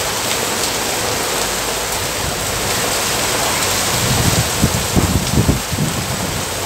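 Heavy rain pouring down on wet pavement in a steady hiss, with an irregular low rumble from about four to six seconds in.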